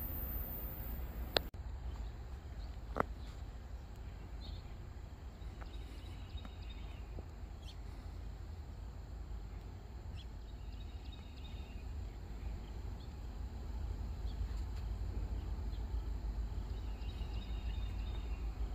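Outdoor trackside ambience: a steady low rumble with faint bird chirps scattered through, and two sharp clicks in the first few seconds.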